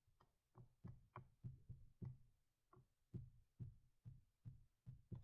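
Faint, irregular taps and clicks of drawing input at a computer, about a dozen light knocks spaced two to three a second as short pen strokes are laid down.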